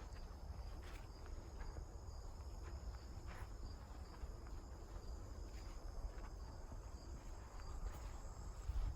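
Steady chorus of insects in the woods, a continuous high, even trilling, over a low rumble.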